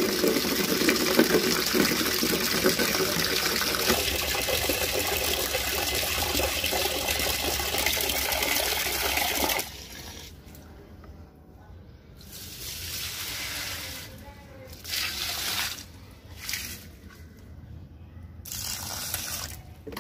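Tap water gushing steadily into a plastic bucket, cutting off suddenly about halfway through. Then water is poured from the bucket onto potted plants in several short, separate pours.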